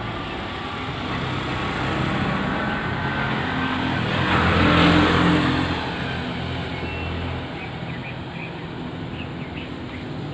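Road traffic: a vehicle passes close by, its engine hum and tyre noise swelling to a peak about four to five seconds in and then fading.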